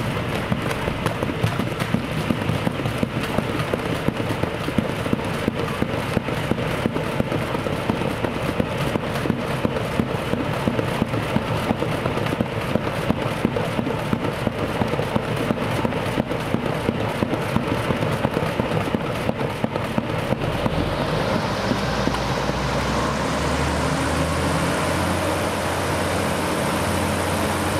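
Passenger hovercraft's engines, lift fans and twin ducted propellers running on the slipway with a rapid pulsing beat. About three-quarters of the way through, the noise swells and turns into a higher, harder rush as power comes up and the craft lifts and moves off.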